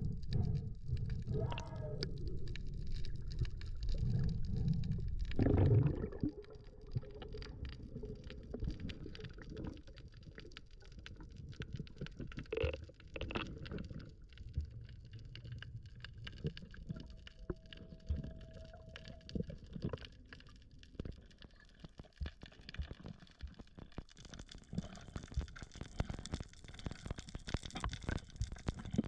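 Underwater sound picked up through a camera housing: a low rumbling and gurgling of water that drops off about six seconds in, over a constant crackle of faint clicks. A short steady hum comes in for a couple of seconds a little past the middle.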